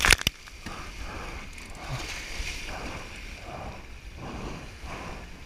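Water rushing and slapping against the hulls of a Hobie 16 catamaran sailing through surf, in uneven surges, with wind buffeting the microphone. A quick cluster of sharp knocks comes right at the start.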